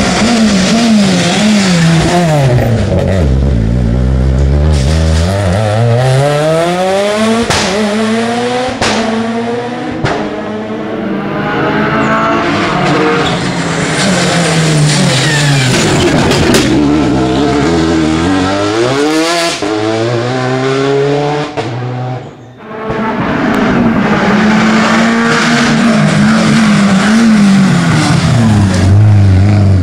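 Rally cars driven hard one after another on a tarmac stage, their engines revving high and dropping in pitch again and again as they brake, shift gear and accelerate. The sound dips briefly about two-thirds of the way through before the next car arrives.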